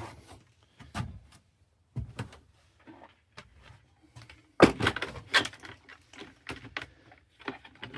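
Scattered clicks and knocks of a replacement furnace motor and its back plate being handled, with a louder crackling rustle about halfway through.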